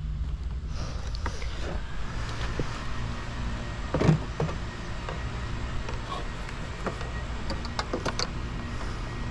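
Scattered light clicks and taps from handling a plastic taillight assembly, with one louder knock about four seconds in, over a steady low hum.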